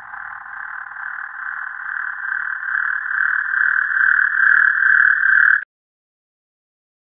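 A cinematic riser sound effect: a buzzing, pulsing tone that swells steadily louder for about five seconds, then cuts off abruptly into silence.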